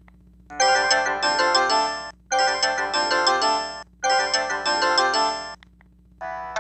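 Sanyo VI-2300 cell phone playing a ringtone: a short bright melody of several notes, repeated three times with brief gaps, then a different tune starts near the end.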